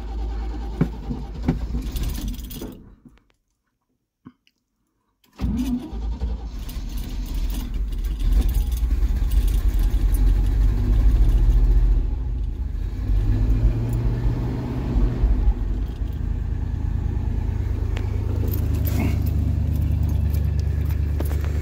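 A 1974 Chevy C30's 350 V8 running on its first start after sitting about five years. After a short silence the engine comes up and speeds up twice, then settles into a steady idle.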